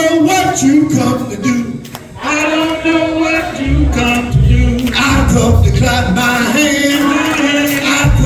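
Church worship singing: voices sing together. A bass and drum accompaniment comes in about four seconds in.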